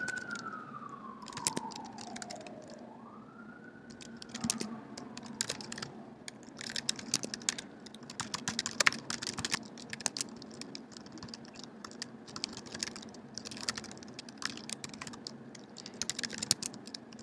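Irregular clicking of typing on a computer keyboard as code is entered. Over the first five seconds a fainter siren wails in the background, falling, then rising and falling once more.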